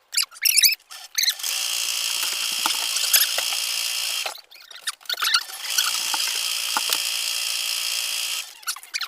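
Electric sewing machine stitching through fabric in two steady runs of about three seconds each, with a short pause between them, a few brief squeaky handling sounds before the first run.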